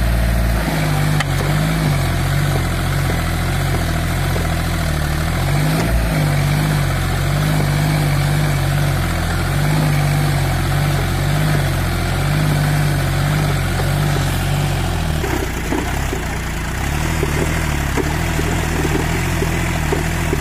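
Tractor engine running steadily, its pitch wavering a little, with a change in its tone about fifteen seconds in.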